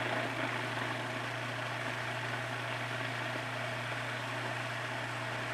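Food processor motor running steadily, blending chickpeas and tahini into a thick hummus paste. It is a low, even hum with a whirring noise above it.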